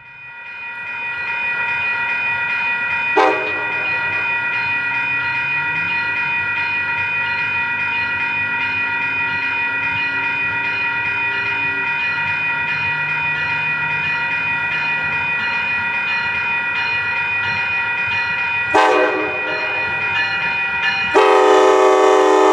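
Amtrak California passenger train arriving: the locomotive's bell rings steadily over its diesel engine. A short horn blast sounds about three seconds in, a one-second blast near the end, and then a long horn blast.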